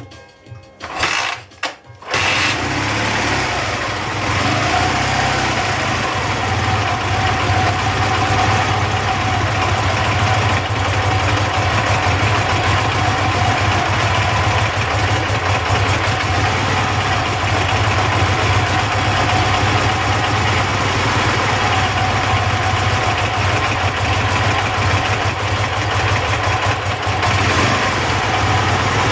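Dnepr MT 10-36 motorcycle's flat-twin engine, coming in about two seconds in and then running steadily at idle, the engine whose knock is being traced.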